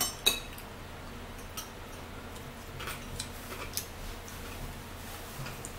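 Metal spoon clinking against a dish while eating: two sharp clinks at the start, the second the loudest, then a scattering of lighter scrapes and taps.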